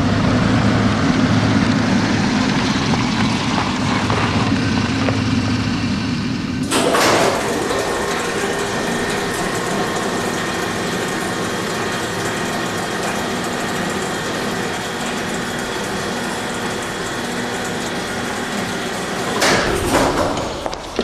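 A steady mechanical drone with low, even tones. A sudden loud noise breaks in about seven seconds in, and a second burst of sudden noises comes near the end.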